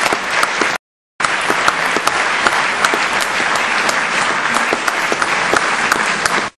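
Audience applauding: dense clapping that breaks off briefly about a second in, then resumes and cuts off suddenly at the end.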